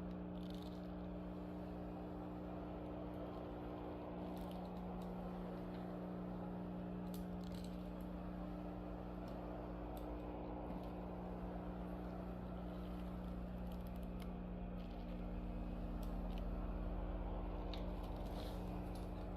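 Benheim BSM-800WH steam mop running with a steady electric hum, with scattered light clicks. A low rumble swells near the end.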